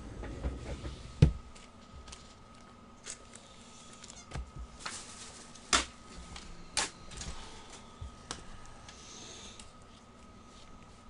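O-Pee-Chee hockey trading cards being handled and flipped through: scattered sharp clicks and light rustling of card stock, with the loudest click about a second in.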